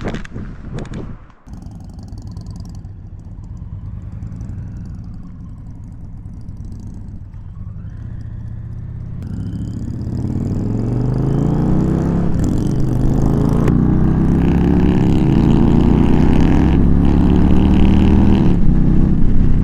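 V-twin motorcycle engines running at a low rumble, then getting much louder from about halfway through as the bikes pull away and accelerate, the pitch rising and falling through the gear changes.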